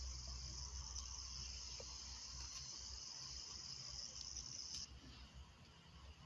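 A cricket trilling steadily in a high pitch, faint, stopping suddenly about five seconds in.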